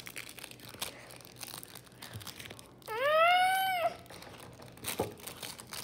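Crinkling and tearing of an ice pop's plastic wrapper being pulled open by hand. Near the middle, a high, drawn-out voice-like cry lasting about a second rises and then holds, louder than the crinkling.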